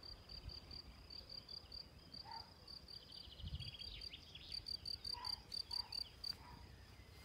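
A cricket chirping in the grass in a steady run of short, high chirps, about four or five a second, which stops a little before the end. A few fainter chirps and trills sound alongside.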